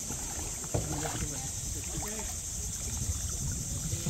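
Kayak paddle strokes dipping and splashing in calm water, with a sharp knock just under a second in, over a steady high hiss.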